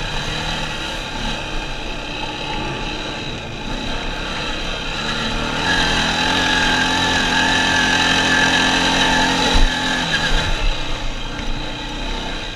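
ATV (four-wheeler) engine running under load: its revs rise about halfway through and hold high for several seconds as it drives up a sandy hill, then drop back. A single sharp thump comes near the three-quarter mark.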